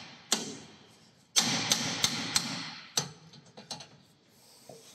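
Hammer blows on metal, striking the steering knuckle to shock the track rod end's tapered stud free: one blow, then a quick run of four about a second and a half in, one more about three seconds in, then a few light metallic clicks.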